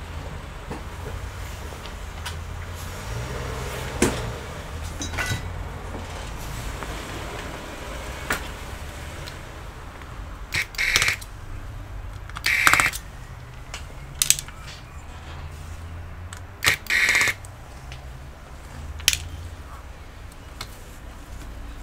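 Small corded electric screwdriver whirring in several short bursts as screws come out of a laptop's motherboard assembly, mixed with light clicks of tools and small parts, over a low steady hum.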